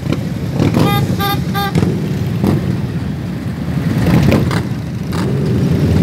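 Harley-Davidson motorcycles' V-twin engines rumbling as a group rides alongside in traffic, with three short horn beeps about a second in.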